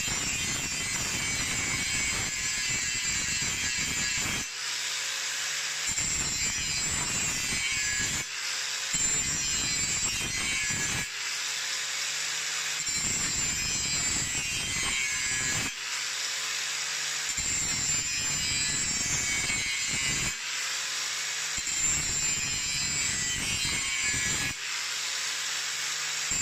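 Angle grinder with a grinding wheel sharpening the edge of a steel lawn mower blade. The wheel grinds along the edge in passes of a few seconds. Between passes it is lifted off about six times, and for a second or two the motor is heard spinning free.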